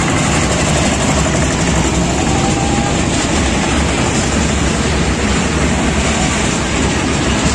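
Steady, loud rumble and wind noise of a small fairground dragon roller coaster, recorded from a seat on board as the train runs along its track.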